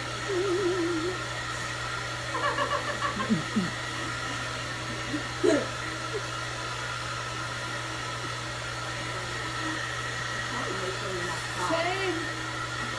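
Blow dryer running steadily, a constant hum under an even rush of air, with a few short voice sounds over it.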